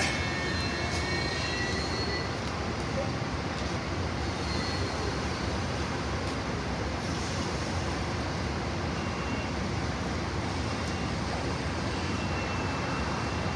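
Steady noise of an Amtrak train at the station. A faint high whine fades out in the first second and comes back faintly near the end.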